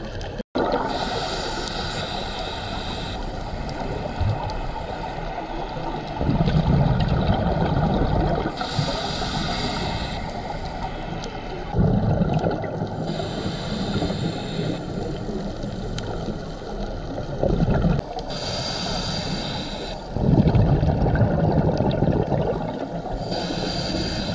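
Scuba diver breathing through a regulator underwater: slow breaths, each a hissing inhale followed by a louder low rumble of exhaled bubbles, about four cycles in all. The sound cuts out briefly about half a second in.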